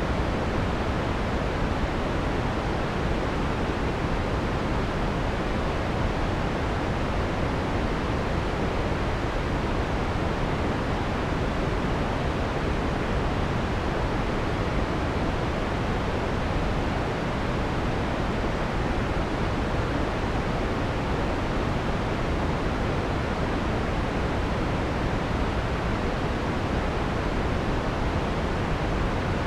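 Steady electronically generated white noise with the harsh high end filtered off, so it sounds soft and full. It does not change in level or character.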